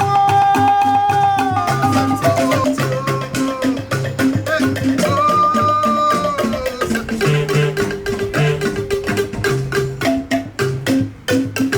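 Music with a busy percussion beat and a repeating bass figure under long held melodic notes.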